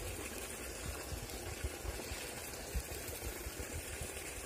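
Steady rush of a small stream's running water, with irregular low thumps on the microphone.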